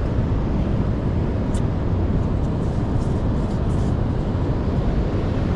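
Steady rumbling noise of storm wind and surf buffeting the microphone.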